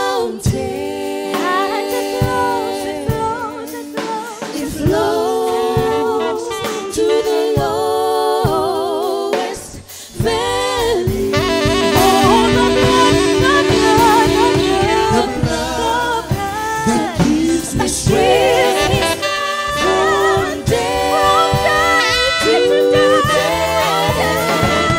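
Gospel vocal group of male and female voices singing together in close harmony into microphones, unaccompanied at first. Low instrumental backing joins about ten seconds in.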